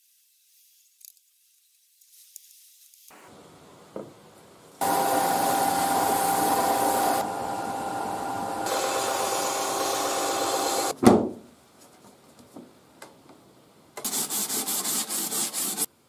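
Belt sander sanding wood: the motor runs steadily with a pitched whine for about six seconds, then winds down with a falling pitch. A second, shorter burst of sanding noise comes near the end.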